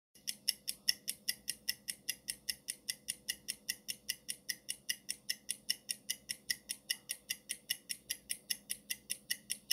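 Countdown timer ticking sound effect: a clock tick repeated evenly, about five ticks a second.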